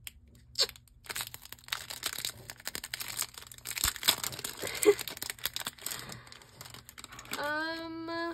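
Clear plastic packaging sleeve of a plate keyring crinkling and tearing as it is peeled open by hand, a dense run of small irregular crackles. Near the end a person makes a short held vocal sound.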